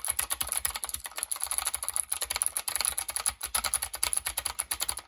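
HK Gaming GK61 60% mechanical keyboard being typed on quickly as a sound test: a fast, dense run of key clicks and clacks, many strokes a second.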